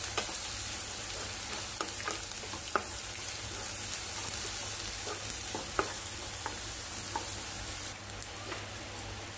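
Chopped onions frying in hot oil in a non-stick kadai, a steady sizzle, stirred with a wooden spatula that knocks and scrapes against the pan now and then.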